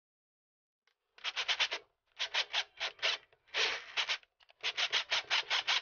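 Quick back-and-forth abrasive rubbing by hand, about eight strokes a second, in four runs with short pauses between them, starting about a second in.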